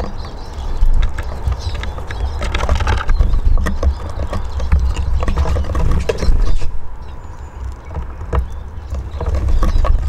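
Eurasian siskins pecking at seed and hopping on a wooden bird table: irregular taps and clicks, over a steady low rumble.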